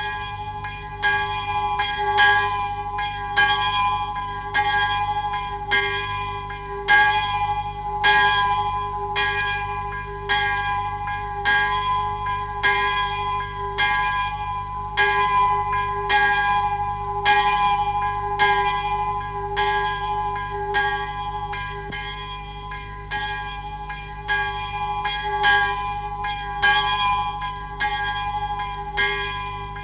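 Church bell tolling: a single bell struck over and over at an even pace of a little under two strokes a second, each stroke ringing on into the next, as a funeral knell. A steady low hum lies underneath.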